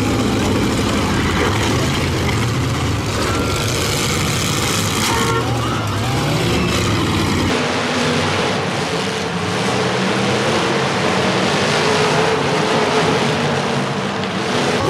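Car engines running and revving under a dense wash of noise, with the sound changing abruptly about halfway through.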